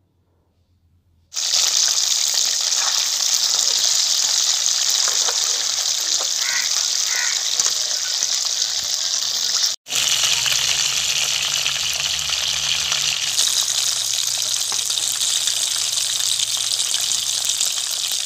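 Fish pieces frying in hot oil in a karahi: a steady sizzle that starts about a second in, with a brief break near the middle.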